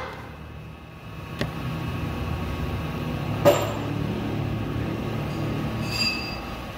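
Metal tools knocking on a partly stripped Scania 124 truck engine, over a steady low hum. There is a sharp click about a second and a half in, a louder knock midway, and a brief metallic ring near the end.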